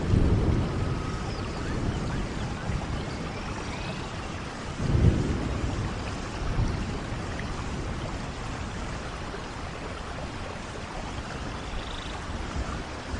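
Steady rain with rolling thunder: a low rumble at the start, then a louder peal about five seconds in that dies away under the rain.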